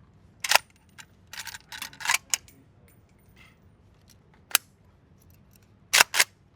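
A series of sharp clicks and knocks: one about half a second in, an irregular run of them between about one and a half and two and a half seconds, another after four and a half seconds, and a quick pair near the end.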